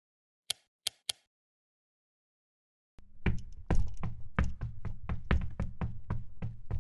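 Foley knocks: three quick, sharp knocks, then a pause of about two seconds, then a fast run of heavier knocks at about four a second over a low steady hum.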